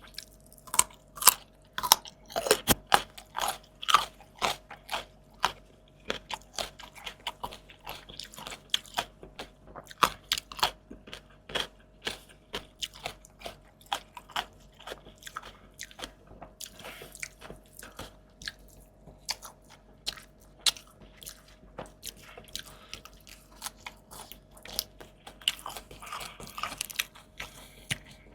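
Close-miked eating: a person biting into and chewing crunchy food, with dense crisp crunches in the first few seconds that thin out into slower, sparser chewing.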